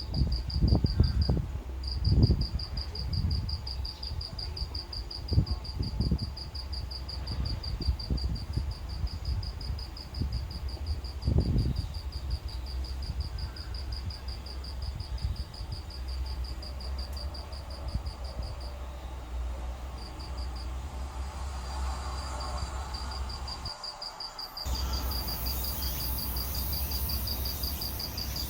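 A cricket trilling: a steady, fast, even pulse on one high pitch that breaks off briefly twice. Low gusts of wind buffet the microphone in the first half. After a short break near the end, a louder high hiss of insects joins in.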